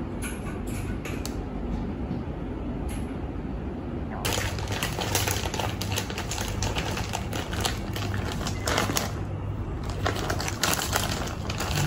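Crinkling plastic food packaging being handled: a few scattered clicks, then from about four seconds in a dense run of crackles and clicks, over a steady low hum.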